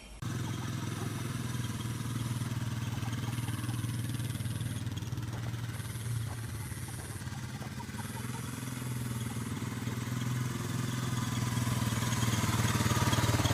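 A running engine: a steady low drone that grows louder near the end.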